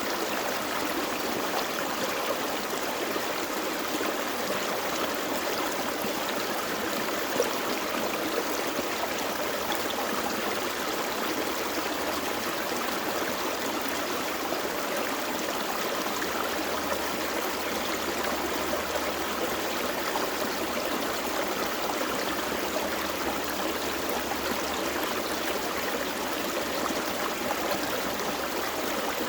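Gentle creek flowing over rocks, a steady babbling rush of water.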